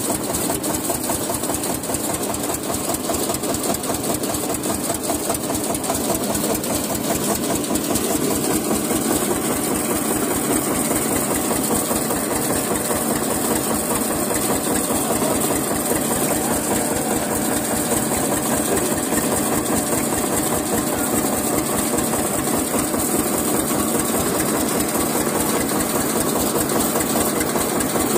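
Tractor engine running steadily with an even, fast beat while it works a rope-and-pulley rig over a new borewell.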